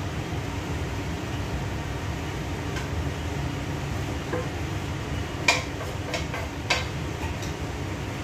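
A spoon scraping and clinking against a tilted frying pan as its sauce is scraped out, a handful of sharp clinks in the second half, two of them louder. Under it a steady low hum, typical of a running kitchen range hood fan.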